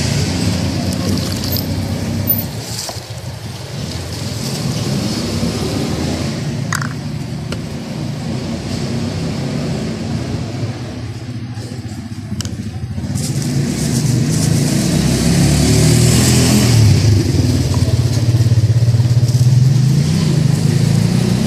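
Street traffic: cars and motorcycles running and passing, a steady engine hum that gets louder about two-thirds of the way through.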